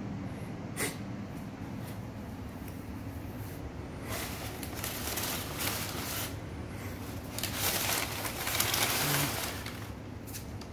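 Crumpled brown packing paper crinkling and rustling as a cat moves about in it, in bursts from about four seconds in and loudest shortly before the end. A single sharp tick comes under a second in.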